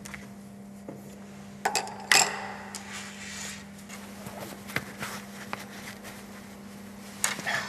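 Hands handling a card and small objects on a desk: a few sharp clicks and rustles, the loudest about two seconds in and another near the end, over a steady low hum.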